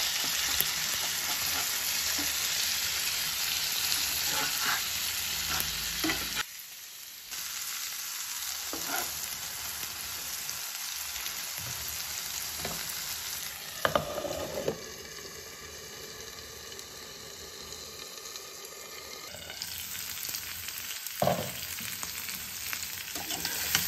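Diced boiled potatoes and tomato purée sizzling in hot oil in a non-stick pan, with a spatula scraping and stirring them now and then.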